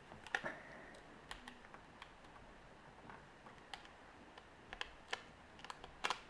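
Faint, irregular light clicks and taps of a small screwdriver and tiny screws on the iPhone 3G's internal parts while the motherboard screws are removed one by one.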